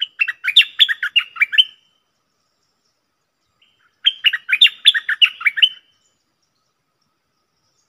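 Stripe-throated bulbul singing two quick phrases of about ten sharp notes each, the second starting about four seconds in.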